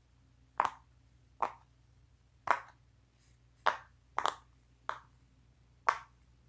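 Silicone pop-it fidget toy being pressed bubble by bubble on its louder side: about eight short, sharp pops at uneven intervals, two of them close together a little past four seconds in.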